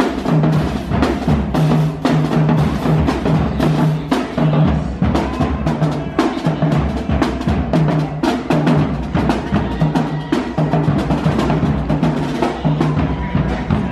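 Street drumline playing: marching snare and bass drums keep up a steady, driving beat, with hand-held crash cymbals clashing over it.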